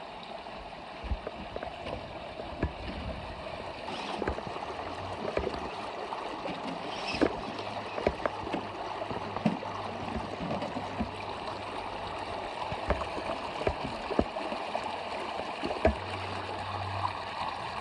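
Shallow creek water running and gurgling, with scattered short splashes and clicks throughout as RC crawler trucks work through the water over rocks. A low steady hum comes in about halfway through.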